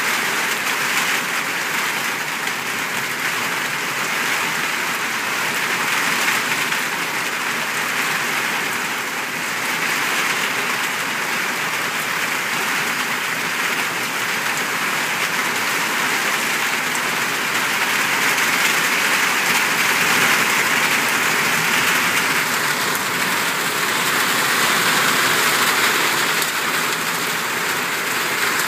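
Heavy rain pouring down onto wet pavement in a downpour: a steady, unbroken hiss of rainfall.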